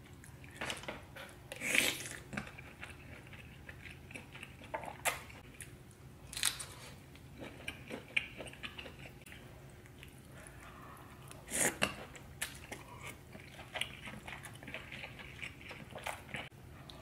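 Close-miked eating of a saucy seafood boil: wet chewing and mouth sounds, broken by scattered short, sharp crackles and smacks. The loudest come about two seconds in and again about twelve seconds in.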